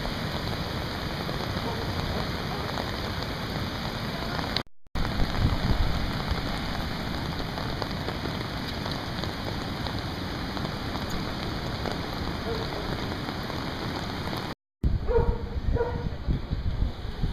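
Steady, even rushing noise of heavy rain and the flood-swollen Gave d'Ossau and Gave d'Aspe in spate, with rain falling on an umbrella; it breaks off briefly twice. Near the end it gives way to a quieter indoor room with a few faint knocks.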